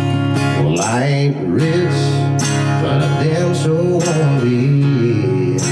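Acoustic guitar strummed in a steady rhythm, the intro of a country song. From about a second in, a wordless voice glides up and down over the chords.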